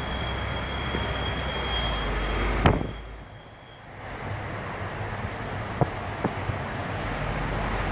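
A tourist bus driving, its engine and road noise heard from on board as a steady rumble, with a faint high whine in the first half. There is a sharp click about two and a half seconds in, and two lighter knocks near six seconds.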